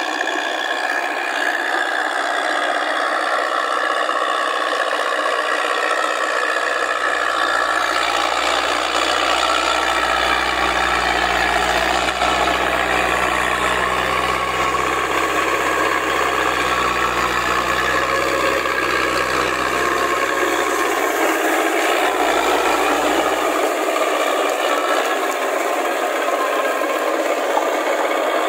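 Massey Ferguson tractor on steel tracks working through paddy mud: the engine runs steadily under load over a continuous clatter and rattle of the track cleats and running gear. A deeper engine drone comes in about six seconds in and drops away a few seconds before the end.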